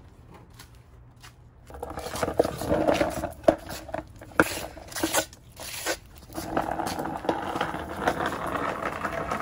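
A puppy scuffling with a skateboard on paving stones: the board scraping and knocking on the ground, starting about two seconds in, with a few sharp knocks and a short lull in the middle.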